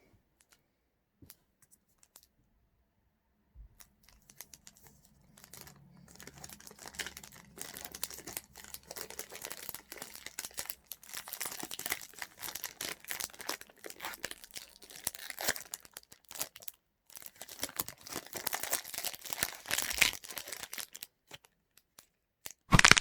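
Feastables chocolate bar wrapper being torn open and crinkled by hand. The crinkling starts about four seconds in after near quiet, turns dense and irregular, and ends with a short loud crackle near the end.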